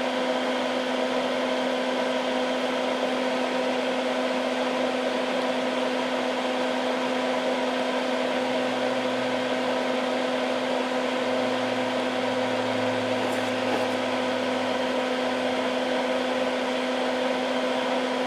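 Hakko soldering smoke absorber (a small fume-extractor fan) running steadily: a constant hum with an even airy hiss.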